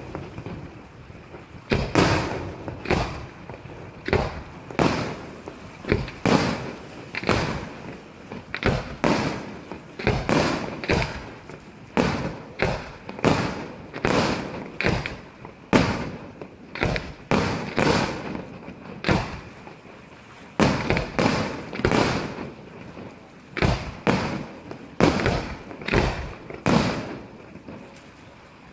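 Aerial firework shells bursting in quick, irregular succession, about one to two bangs a second, with a short lull about twenty seconds in.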